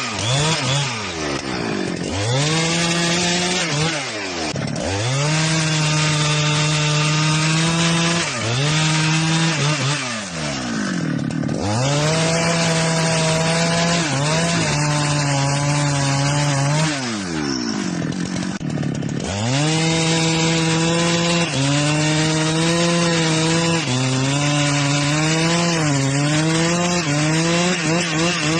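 Two-stroke chainsaw cutting wood at high revs, its engine pitch sagging several times as the chain bites into the cut and climbing back as it frees up.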